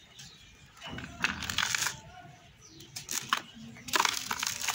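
Dry moulded yellow-soil cups crumbled between the fingers, with crumbs and powder falling into a basin: gritty crunching and crackling, loudest in two bursts, about a second in and again near the end.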